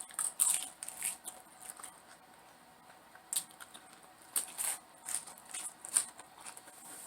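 Close-miked chewing of crisp food: irregular crackly crunches and mouth clicks, with louder crunches about half a second in, around three and a half and four and a half seconds, and at six seconds.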